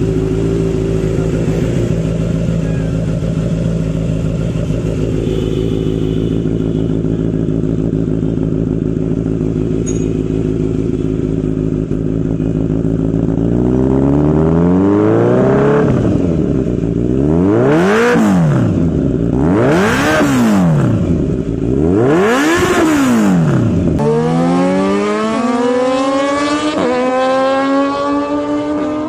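Kawasaki Z900 inline-four engine through an Akrapovic slip-on exhaust, idling steadily. From about halfway, the throttle is blipped in four sharp revs that rise and fall. After a break, a motorcycle accelerates hard, its pitch climbing with a couple of gear changes near the end.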